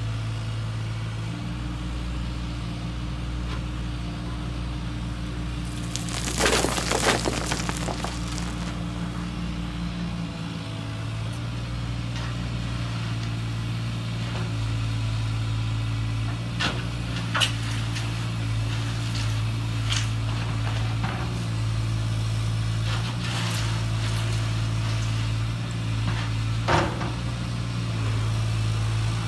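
Huina 1580 metal RC excavator's motors humming steadily, the pitch shifting as functions switch on and off, while the steel bucket digs into rocky soil: a stretch of crunching and scraping stones about six seconds in, then a few sharp clacks of stones later on.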